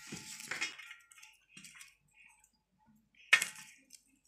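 Garlic cloves being peeled by hand over a steel plate: faint crackling and rustling of dry papery skins, with one sharp clink against the plate a little over three seconds in.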